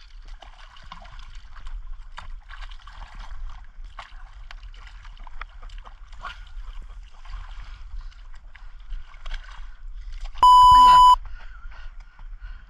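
Water lapping and splashing around a small boat, with scattered clicks and knocks of fishing tackle and a fish splashing at the surface near the start. About ten seconds in, a loud, steady electronic beep lasting under a second, the loudest sound here.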